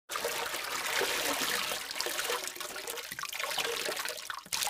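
Water splashing and pouring, a steady rushing noise with small splatters, dipping briefly near the end.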